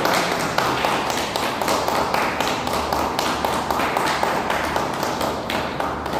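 A few people clapping their hands steadily, a quick even run of claps.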